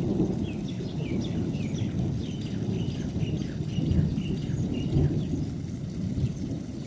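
A low, uneven outdoor rumble with many short bird chirps over it, several a second, fading somewhat near the end.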